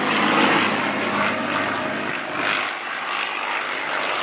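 An F-16 jet and a P-51 Mustang fly past together: a steady rushing jet noise with the Mustang's piston-engine drone underneath. It eases slightly a little over halfway through.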